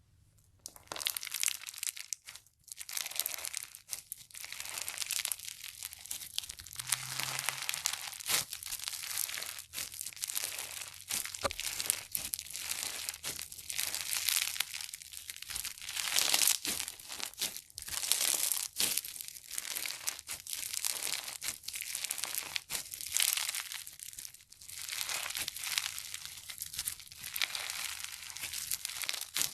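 Crunchy slime being squeezed and stretched by hand, giving dense crackling and crinkling pops that swell and ease in waves every second or two.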